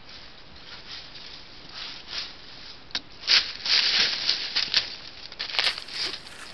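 Deer walking through dry leaf litter right beside the microphone: a quick run of crunching, rustling hoofsteps. They are loudest from about three seconds in as the animal passes close.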